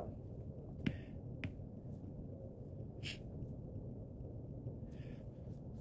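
Quiet pause with low room hiss, two faint sharp clicks about a second in, and two short soft hisses later on.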